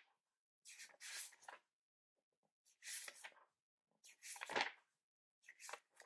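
Pages of a thick paper book being turned by hand: four papery swishes, about one every second and a half.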